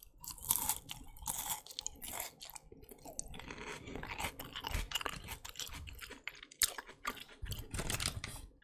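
A crisp lettuce leaf chewed close to the microphone: a steady run of wet, crunchy bites and chews.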